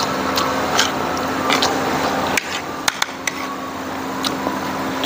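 Sounds of people eating with spoon and fork: irregular light clicks and scrapes of cutlery on plates, with chewing, over a steady background hum.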